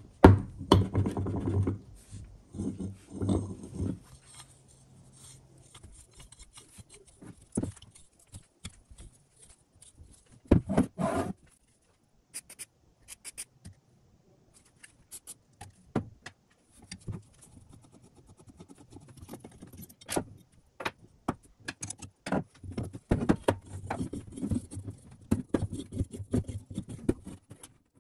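Rusty cast-iron drill press vise being worked by hand: its rusty screw is cranked and the jaw scrapes and rattles for the first few seconds. After that come scattered metal clicks, knocks and rubbing as the vise is handled.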